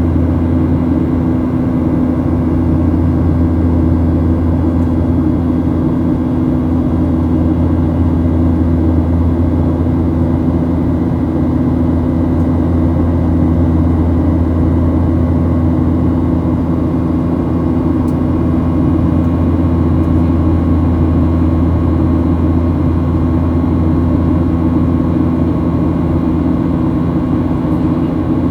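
Boeing 737 airliner in flight: a steady drone of the jet engines and airflow with a constant low hum, unchanging throughout.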